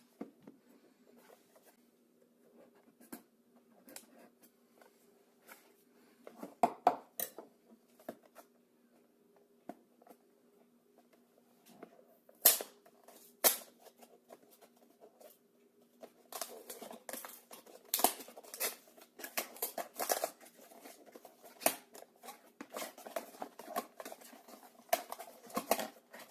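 A cardboard toy box being opened by hand: scattered light taps and clicks, two sharp snaps about halfway through, then busy rustling and crinkling of the packaging for the last ten seconds.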